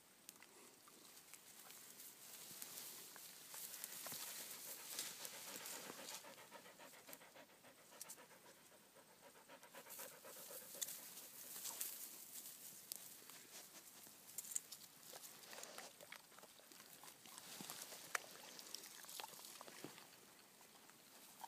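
Dogs panting and breathing hard as they eat crowberries straight off the low shrubs, with rustling of the twigs and scattered small clicks, rising and falling in waves.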